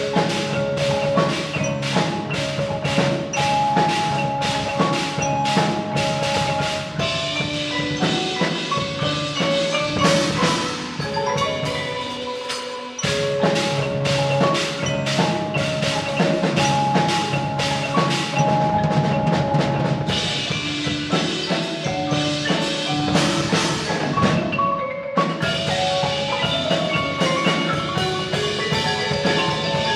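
A percussion ensemble playing: many pitched notes struck in quick succession over held ringing tones. The playing dips briefly about 13 seconds in and thins for a moment near 25 seconds, then carries on.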